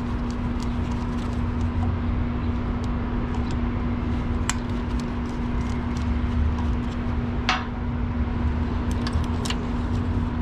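Small metallic clicks and clinks as a screwdriver loosens terminal screws and wire connectors come off a compressor's terminals, a few scattered through, over a steady low hum and background noise.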